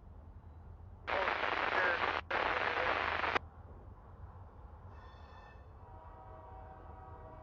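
Radio scanner breaking squelch: a burst of static hiss about two seconds long that switches on and off abruptly, with a brief dropout in the middle. Faint steady tones follow near the end.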